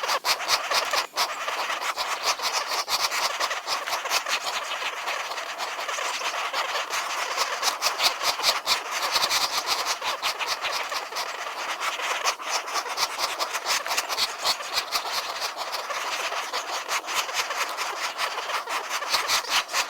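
Woodpecker pecking on wood: a long run of quick, uneven taps over a steady hiss.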